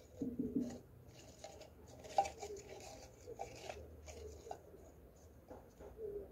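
Faint rustling and crinkling as pothos cuttings are handled in a clear plastic jar, with a sharper tap about two seconds in.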